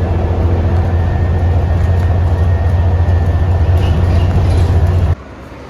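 Bus running along the road, heard from inside as a loud, steady, low engine and road rumble with a faint high whine. It cuts off abruptly about five seconds in.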